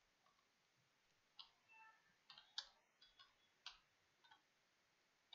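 Faint keystrokes on a computer keyboard: a short run of light, irregular clicks as a couple of words are typed.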